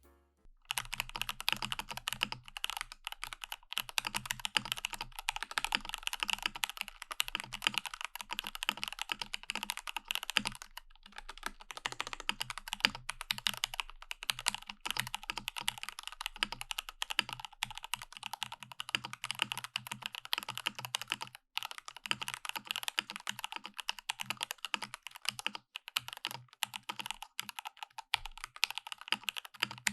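Typing on a Rama Works M65-B 65% mechanical keyboard with stock Gateron Oil King linear switches on a PVD-coated brass plate with an internal silicone dampener: a steady stream of keystrokes, broken by brief pauses about a third and two-thirds of the way through.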